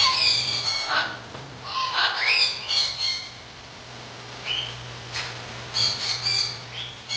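Birds squawking in repeated short, harsh calls that come in clusters, over a steady low hum.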